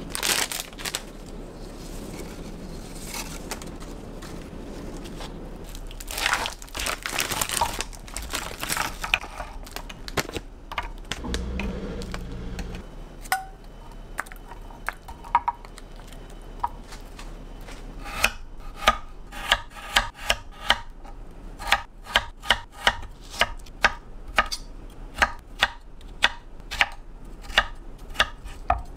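Knife chopping strawberries on a wooden cutting board, even knocks about two a second, starting after about 18 seconds. Before that, rustling and handling noises.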